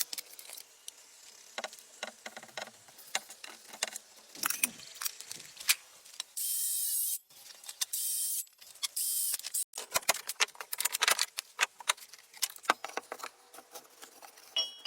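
Handling noise from working with small gear by hand: a run of irregular clicks, taps and knocks, with three rasping scrapes of about a second each near the middle.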